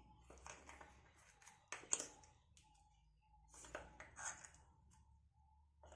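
Faint scraping and a few light clicks as ground onion, ginger, garlic and green chilli paste is scraped out of its container onto raw chicken pieces for the marinade. The sharpest click comes about two seconds in, and a few more soft scrapes follow near the middle.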